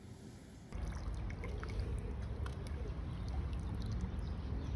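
Water pouring out of a plastic rainwater tank's bottom outlet pipe and splashing onto wet paving, a steady rush with a low rumble and small drips, starting abruptly about a second in.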